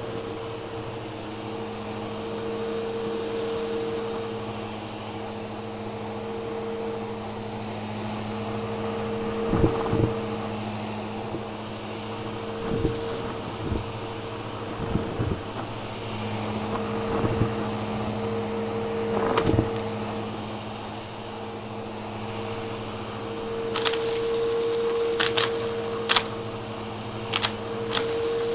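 Bissell upright vacuum cleaner running on carpet with a steady motor hum while it sucks up fluffy stuffing and small crunchy debris. The debris crackles and clicks as it goes up the nozzle, with a few sharp clicks scattered through and a quick run of them near the end.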